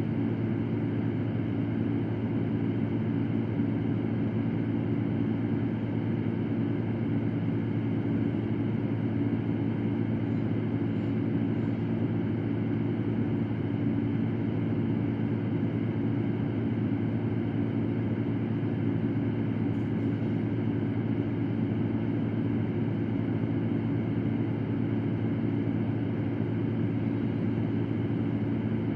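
Electric fan running steadily: an even whooshing drone with a low motor hum, used as white noise for sleep.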